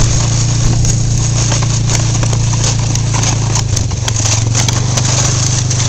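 ATV engine running steadily near idle, its pitch shifting slightly a little past the middle.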